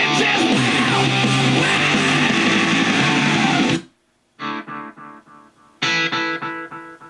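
Guitar music playing from a CD through a Sony CFD-S33 boombox's speakers. It cuts off suddenly about four seconds in as the track is skipped; after half a second of near silence the next track starts with two strummed chords a little over a second apart, each ringing out and fading.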